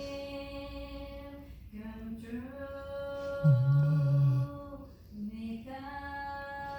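Two sleepers snoring together. One gives long, steady, sing-song snores, each held about a second and a half on one pitch. The other adds a lower, louder snore about halfway through.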